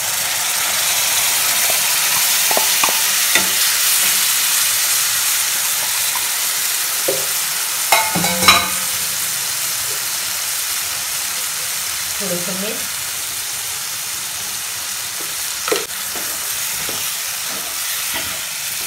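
Soaked chana dal and its soaking water poured into hot oil and onion-tomato masala in a kadhai, sizzling steadily as it fries. A spatula stirs it, knocking against the pan a few times.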